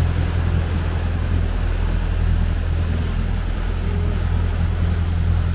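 A sportfishing boat's engines running steadily at trolling speed, a deep even hum, with the wake churning and wind on the microphone.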